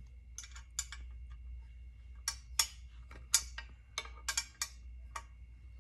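Irregular sharp metallic clicks, about a dozen, as a hex key (L key) is worked by hand on the screws of a Can-Am Ryker's plastic back-seat rack.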